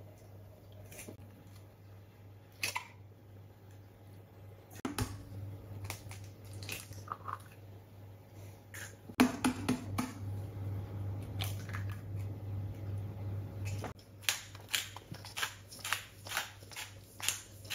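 Eggshells cracked open by hand one after another: scattered sharp cracks and taps. Then, in the last few seconds, a hand-twisted spice grinder turns with a quick run of crisp clicks, a few a second.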